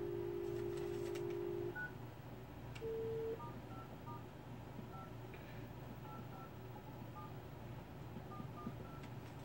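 A telephone dialing a number: a steady tone for the first couple of seconds, a brief higher tone, then about a dozen short keypad beeps at uneven spacing as the digits are pressed.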